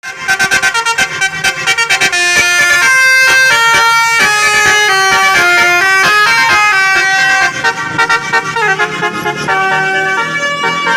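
Telolet basuri multi-tone bus horn playing a tune. It opens with about two seconds of rapid staccato toots, about seven a second, then plays held notes stepping up and down in a melody.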